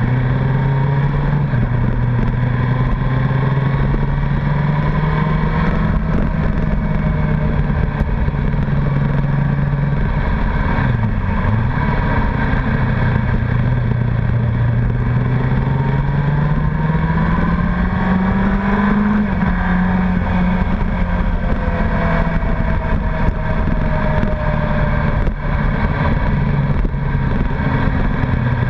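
Honda CBR1100XX Blackbird's inline-four engine running under way at road speed over a constant rush of wind. The engine note dips briefly about a third of the way in, then climbs steadily for a few seconds before dropping back about two-thirds of the way through.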